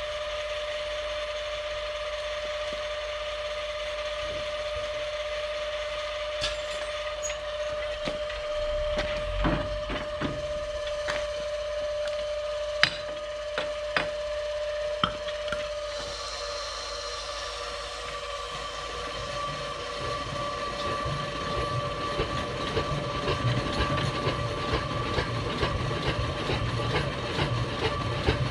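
A steady electric-motor whine from the starting cart, with tool clicks and knocks in the middle. From about twenty seconds in, a lower rumble builds as the 1961 Zetor 25's two-cylinder diesel is cranked and begins to fire.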